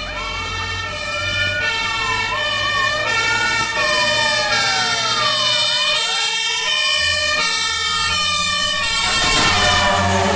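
Fire engine responding with its siren wailing up and down over steady horn tones and a low engine rumble, growing louder as it approaches, the pitch dropping as it passes close near the end.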